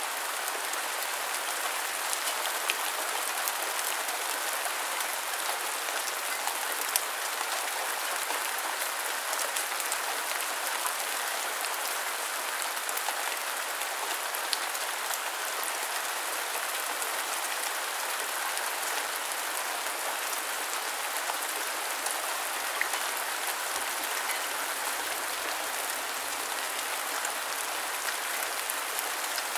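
Steady rain falling, an even hiss with scattered individual drops ticking close by, a few of them louder; no thunder.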